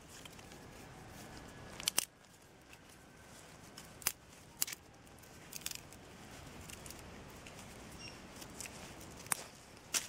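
Small dry twigs being snapped and trimmed by hand to similar lengths: a few scattered sharp snaps and clicks, the loudest about two seconds in, over faint handling noise.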